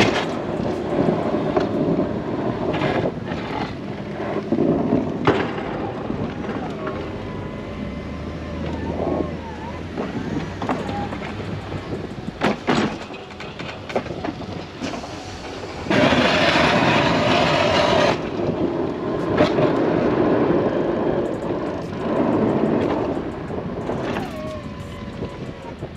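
Pickup truck with a front snowplow back-dragging wet, slushy snow away from a garage: engine running and the blade scraping snow along the driveway, with a loud rushing stretch about two-thirds of the way through.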